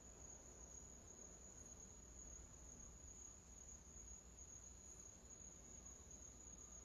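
Near silence: a faint, steady high-pitched tone with a low hum underneath.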